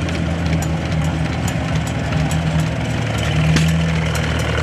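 Antique McCormick Farmall B tractor's four-cylinder engine running steadily, swelling slightly a little past three seconds in.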